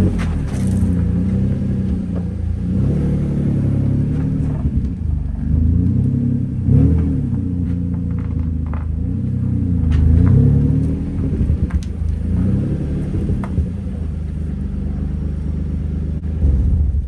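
Car engine running with the revs rising and falling repeatedly, as when a car is driven slowly and manoeuvred; it cuts off abruptly at the very end.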